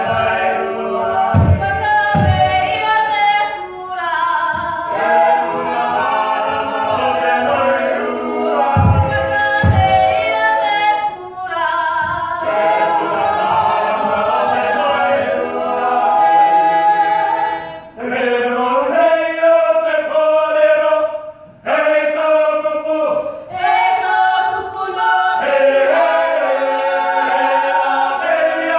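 Unaccompanied choir singing a Cook Islands imene tuki hymn in several voice parts, in phrases with short breaks. A few deep thuds sound near the start and again about nine seconds in.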